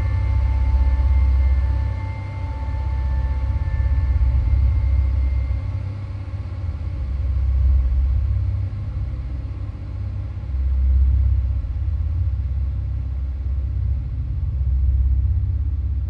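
Horror background music: a deep rumbling drone that swells and ebbs every few seconds, with a few thin ringing tones fading away over the first several seconds.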